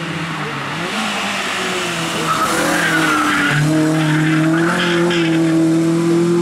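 VW Lupo hill-climb car taking a hairpin and accelerating hard, its engine pulling up steadily through the revs. A short tyre squeal comes about two and a half seconds in.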